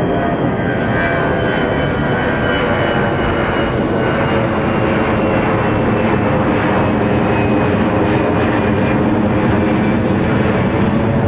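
Twin-engine jet airliner passing overhead, its engines a steady loud rush with a high whine that slowly falls in pitch.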